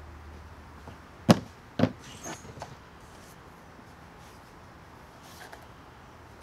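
Two sharp knocks of wooden boards being handled, about half a second apart, followed by a few lighter clacks. A faint low hum stops about a second in.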